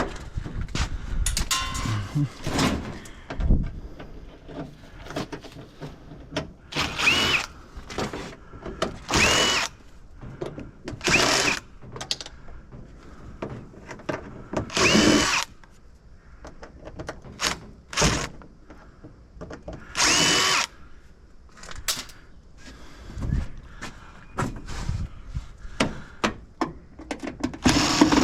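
A power drill-driver backing screws out of a microwave's sheet-metal casing in about five short runs, the motor spinning up with a rising whine each time. Between runs there are knocks and clatter of the metal casing being handled.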